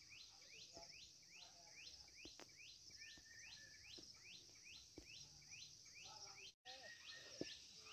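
Near silence with faint outdoor ambience: a short rising chirp repeated a little over twice a second, over a steady faint high hiss.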